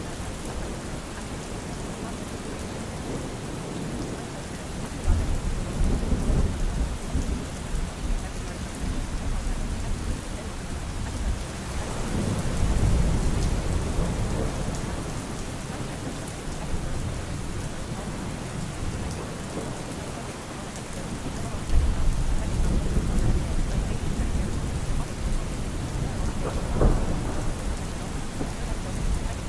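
Thunderstorm: steady rain with deep rolls of thunder swelling about five seconds in, about twelve seconds in and about twenty-two seconds in, and a short sharp crack near the end.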